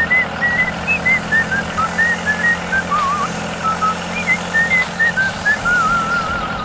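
A whistled tune of short notes at changing pitches, several a second, some of them warbling, over a steady low engine hum.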